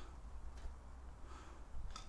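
Quiet low rumble of movement and handling noise on an action camera's microphone, with a faint short scuff just before the end.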